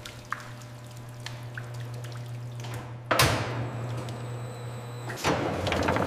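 Wine press machine humming steadily as grape juice drips and pressed pomace splatters out, with scattered small drips and two sudden rushing splatters, the louder about three seconds in and another about five seconds in.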